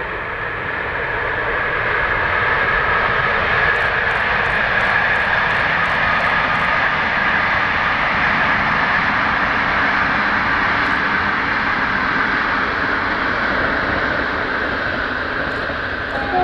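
InterRegio passenger train passing, its steady rolling noise of wheels on rails swelling over the first two seconds and then holding. About four seconds in, a quick run of light clicks comes over it.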